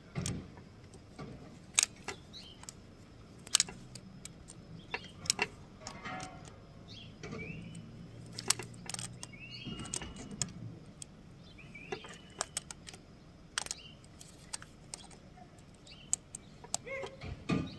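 Scattered sharp metallic clicks and clinks of a torque wrench and clamp hardware being worked on an overhead cable strand. A low hum runs through the middle for several seconds, and a few short high chirps are heard.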